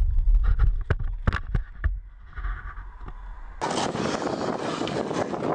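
Wind buffeting an action camera's microphone as a shopping cart rolls fast down a paved hill, with sharp rattling clicks from the cart. About three and a half seconds in, it cuts abruptly to a steady hiss.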